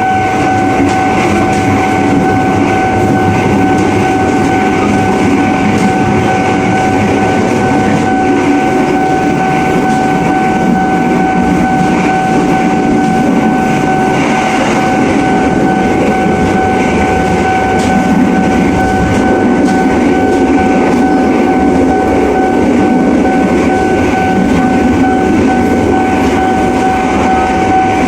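Battery-powered Thomas & Friends toy train running on its plastic track: a steady high motor whine over a continuous rattling clatter of wheels and track.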